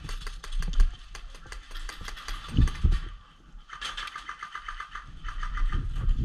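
Airsoft guns firing in a rapid, even rattle of clicks, most dense for about a second and a half past the middle, over scattered clicks and scuffs. Two dull thumps a little before the middle are the loudest sounds.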